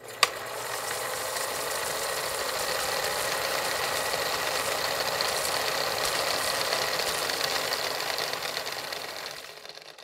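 Rushing stream water, a steady hiss that fades in at the start and fades out near the end, with a short click just after it begins.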